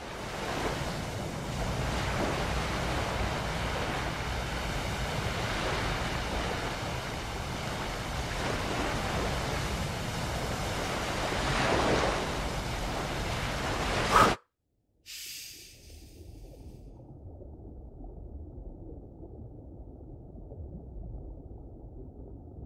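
Film soundtrack ambience: a loud rushing noise that swells twice and cuts off with a sharp hit about fourteen seconds in. After a moment of silence and a short hiss, a quieter, muffled low rumble goes on.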